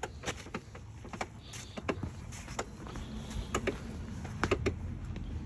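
Irregular light clicks and knocks, about two or three a second, over a low steady hum.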